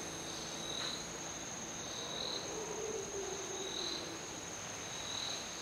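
Night insects in tropical trees: a steady high whine with a chirp repeating about every second and a half. A faint, low, drawn-out call sounds in the middle.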